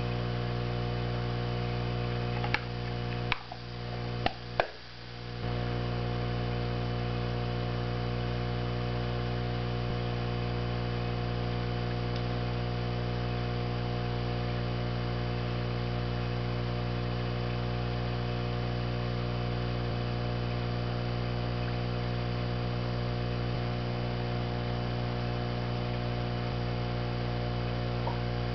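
Steady electrical hum made of many steady tones, with a few sharp clicks between about two and five seconds in, where the hum briefly drops out.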